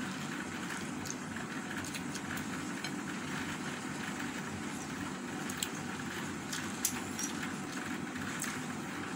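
Eating by hand with mouth sounds: scattered soft clicks and small crunches of chewing rice and roast chicken, over a steady background hum.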